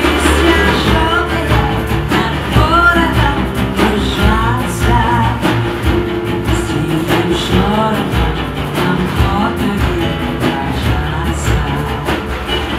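A song playing: a singer's voice with wavering, vibrato-laden notes over a band with guitar and a steady bass line.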